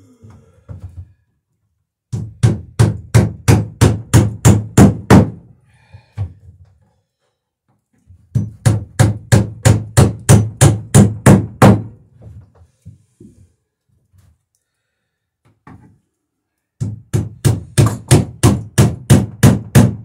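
A hammer driving nails into a wooden boat's rail: three runs of quick, even blows, about four a second, each run growing louder as the nail goes home.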